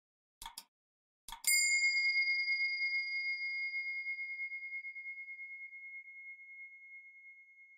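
Subscribe-button sound effect: a few quick clicks, then a bright bell ding about one and a half seconds in that rings on and slowly fades with a gentle pulsing over about six seconds.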